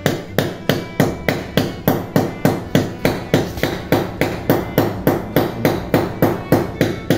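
Hammer striking in a steady, rapid rhythm, about two and a half blows a second.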